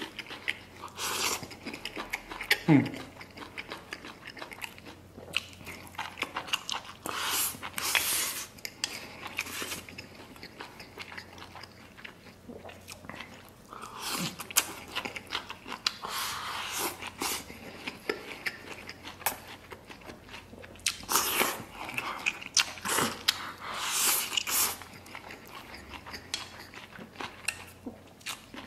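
Close-up eating sounds: chewing mouthfuls of chili stir-fried octopus and rice, and sucking in strips of stir-fried vegetable from chopsticks. The sounds come in bursts with quieter pauses between them. A short rising squeak about three seconds in is the loudest moment.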